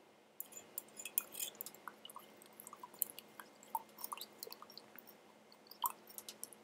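Faint, irregular small clicks and ticks, close to the microphone, over a faint steady hum.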